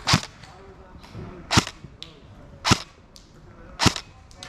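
Airsoft rifle firing single shots of 0.5 g BBs, four sharp cracks a little over a second apart.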